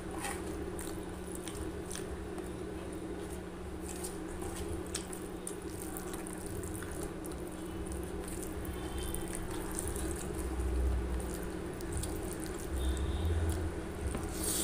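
Fingers squishing and mixing rice with prawn and potato curry on a steel plate: wet squelching with scattered small clicks over a steady low hum.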